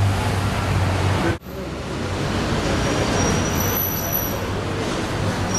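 City street traffic noise with a steady low vehicle engine hum. It cuts out abruptly about a second and a half in, then returns as a steady background noise with a faint high whine.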